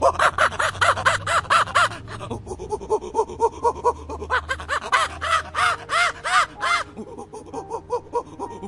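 A monkey calling in rapid runs of short calls that rise and fall in pitch, about four or five a second, in two loud bouts, the second beginning about halfway through.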